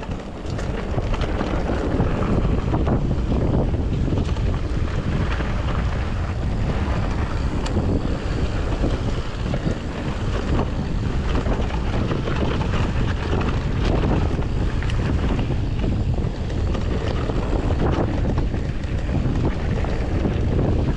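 Mountain bike descending rough trail at speed, with wind buffeting the action camera's microphone over steady tyre and frame rattle and many small knocks.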